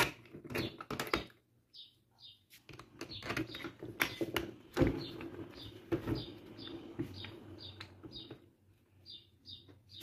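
Clicks and knocks of an electric fan motor's metal and plastic parts being handled and fitted together on a workbench. A bird chirps over and over in the background.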